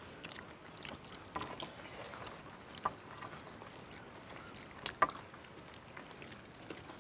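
Faint eating sounds: scattered soft clicks and wet smacks of fried chicken being torn apart by hand and chewed, the sharpest near three seconds in and about five seconds in.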